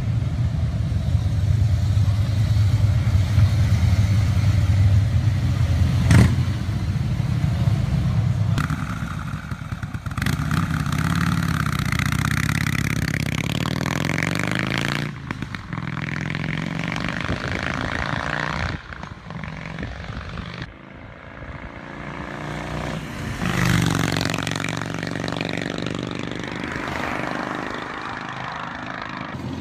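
Harley-Davidson V-twin motorcycles with loud exhausts. First a Breakout runs with a deep steady rumble and one sharp crack about six seconds in. Then a Forty-Eight revs and rides past, its pitch rising and falling, followed by another loud pass-by.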